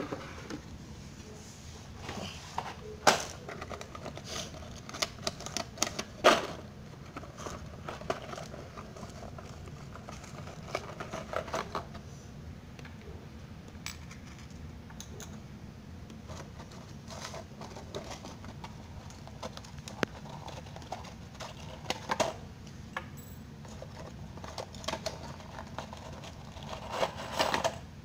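Metal deck screws and a wooden board being handled on a tile floor: scattered clicks and knocks, with two louder knocks in the first few seconds and a cluster of clicks near the end.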